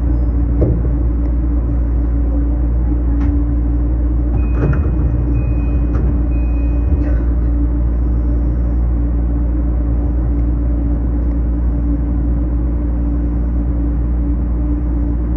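BEC819-series battery-electric train running on the line, heard from inside at the front of the car: a steady rumble with a constant hum, a few light clicks, and a short run of high beeps a few seconds in.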